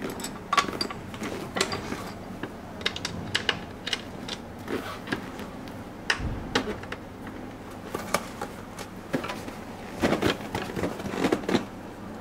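Irregular small metallic clicks and knocks of screws and the chair's steel backrest bracket being handled as the screws are fitted by hand, with a busier run of clicks near the end.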